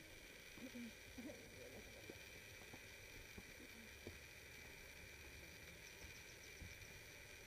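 Near silence: faint hilltop ambience, a steady low hiss with a few faint distant sounds in the first second or so.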